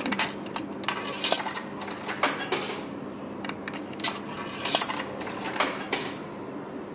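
Coins fed one after another into the coin slot of a drinks vending machine, each clinking as it drops through the coin mechanism. There are about nine metallic clicks over some six seconds, then they stop.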